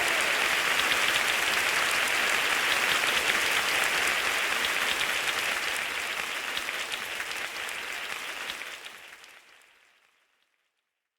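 Applause, a crowd clapping steadily, then fading out to silence about nine to ten seconds in.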